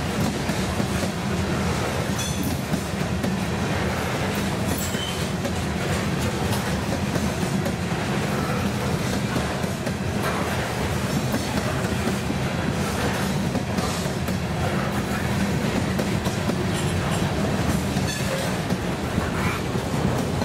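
Freight cars of a CSX train (covered hoppers, then autoracks) rolling steadily past at close range: a continuous rumble of steel wheels on rail, with scattered clicks and clanks and a few short, high squeaks.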